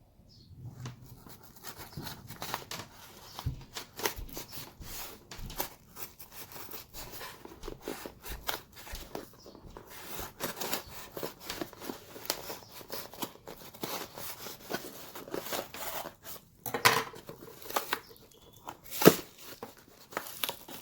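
Shipping box and packaging being opened by hand: irregular tearing, crinkling and rustling throughout, with a few louder sharp knocks near the end.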